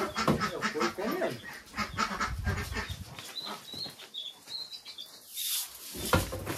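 Pigs grunting while they move about a wet concrete pen, with a run of irregular knocks and clatter in the first few seconds.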